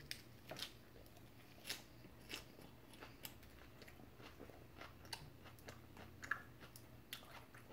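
Close-up chewing of a mouthful of leafy green salad: faint, irregular crunches and wet mouth clicks.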